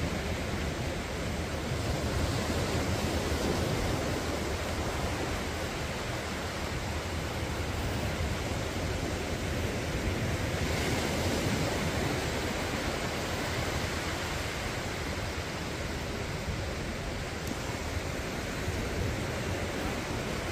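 Ocean surf washing up the beach in a steady rush, swelling as waves break about two seconds in and again about halfway.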